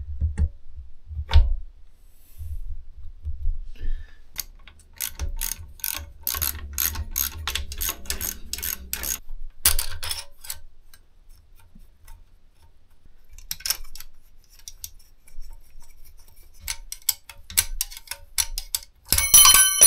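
Metal tools and bolts clicking and clinking inside an open tractor gearbox housing while the rear end is bolted back together, with a dense run of quick clicks in the middle. Near the end comes a rapid ratchet-like clicking that rings metallically in the housing.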